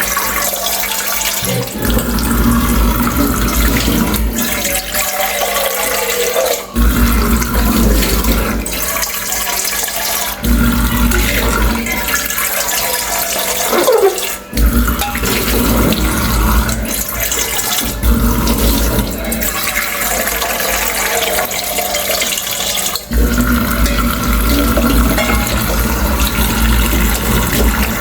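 Tap water running into a sink while dishes are washed, a steady splashing rush whose sound shifts every few seconds.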